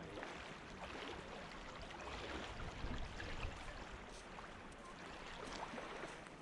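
Small waves of a calm sea washing up over sand at the water's edge and draining back, close to the microphone.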